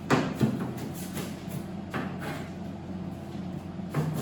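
Kitchen knife chopping an onion on a cutting board: a few irregular knocks of the blade against the board, over a steady low hum.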